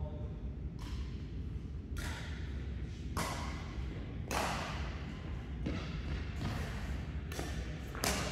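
Badminton rally: rackets striking a shuttlecock back and forth, about eight sharp hits roughly a second apart, echoing in the hall over a steady low rumble.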